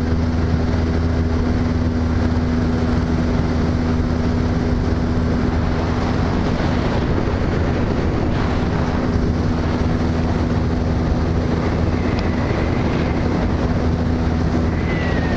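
Small motorboat's engine running steadily at cruising speed, a constant low hum with the rush of wind and water over the boat as it moves.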